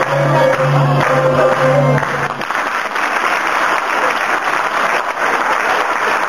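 A song with a folk ensemble of qanun and oud ends about two seconds in, on a held final note over repeated bass notes. Then the audience applauds steadily.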